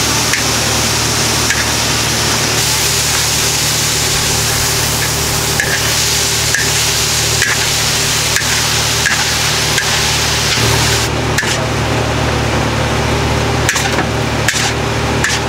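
Noodles and bean sprouts frying in a hot wok: a steady sizzle over the low rush of the gas burner, with a metal spatula scraping and clinking against the wok. In the last few seconds the sizzle eases a little and the spatula strikes come more often.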